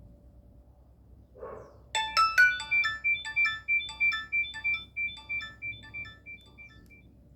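Nokia E62 phone playing a ringtone through its loudspeaker: a melody of short, quick notes, about three a second, that starts about two seconds in and gradually fades out.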